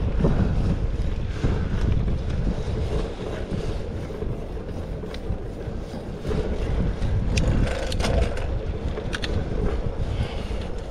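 Wind rushing over the microphone of a moving bicycle, with tyre noise on asphalt underneath. In the last few seconds a few short, high squeaks or clicks come from the drivetrain, whose chain the rider says needs better oil than the dry lube now on it, against water and salt.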